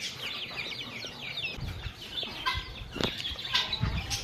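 Young chicks peeping: many short falling chirps in quick succession, with a couple of fuller calls and low thumps about halfway through and near the end.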